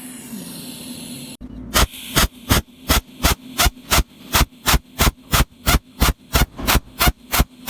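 Cold welding machine firing its pulsed arc, a quick, even series of sharp zaps at about three a second that starts about a second and a half in, over a steady machine hum.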